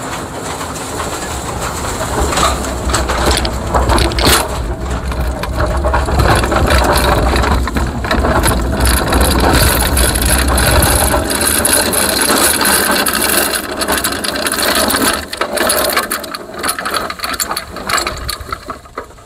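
A Poulan push mower with a Briggs and Stratton 550 series engine being rolled along outdoors, engine off: its wheels crunch over the ground and the deck rattles. A heavy rumble of wind on the microphone runs through the first half.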